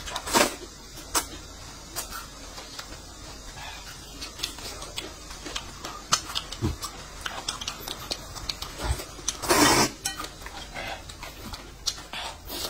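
Eating sounds: noodles slurped from a bowl of broth, with small clicks of spoon and chopsticks against cup and bowl, and a long loud breathy slurp about nine and a half seconds in.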